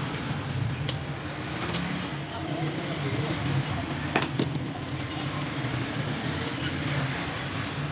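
Steady low rumble of road traffic in the background, with a few light clicks of hand tools on metal parts at a workbench, two of them close together about four seconds in.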